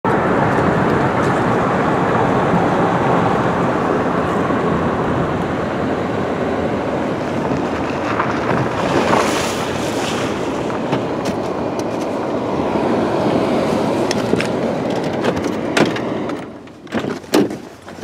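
Car driving, heard from inside the cabin: a steady rumble of tyres and engine. About sixteen seconds in it drops away as the car comes to a stop, leaving a few short knocks and clicks.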